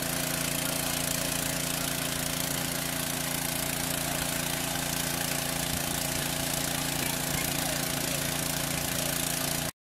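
Small petrol engine of a portable generator powering an electric fishing rig, running steadily with an even hum. The sound cuts off abruptly near the end.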